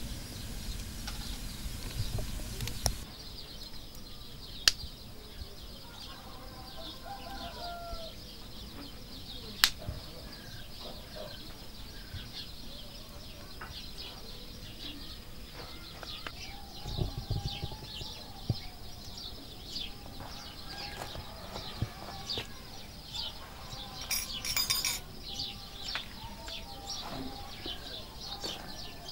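Wood fire burning in the firebox of a mud-and-straw bread oven, with two sharp pops about five and ten seconds in, while birds chirp and call steadily all around.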